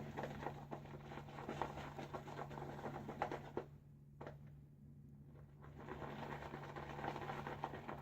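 Badger shaving brush swirling soft shaving soap lather in a bowl: a fine wet crackle and swish of small quick clicks. It stops for about two seconds midway, then starts again.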